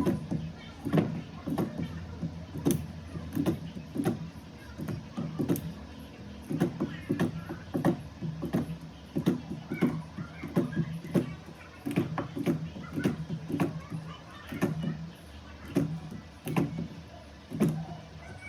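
A run of sharp clicks at irregular intervals, about one or two a second, over a steady low hum.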